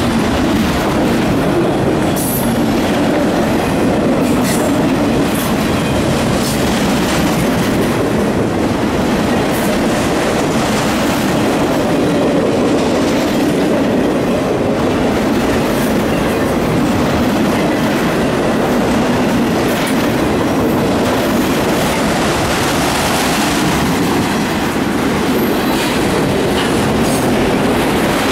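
Freight train of autorack cars rolling past at steady speed: continuous rumble and clickety-clack of steel wheels on rail, with a few brief high wheel squeals.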